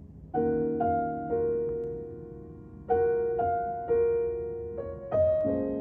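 Background music: soft piano notes struck a few at a time in short phrases, each ringing out and fading before the next.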